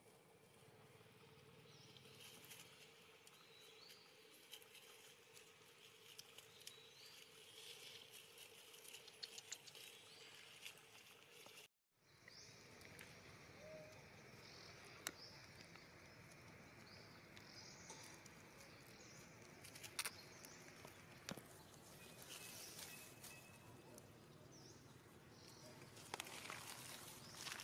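Near silence: faint outdoor ambience with scattered soft clicks and rustles, and a brief dropout about twelve seconds in where the sound cuts out completely.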